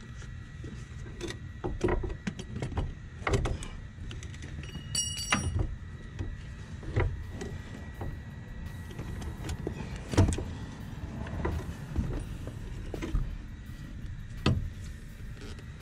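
Scattered knocks and clunks of a front strut and coil-spring assembly being worked out of the wheel well past the upper control arm, with rustling of gloves and sleeves close by. A brief high ring about five seconds in.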